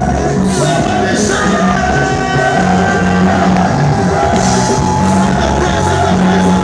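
Loud live praise music with a steady bass line and held sung notes over it, with a few shouts from the congregation.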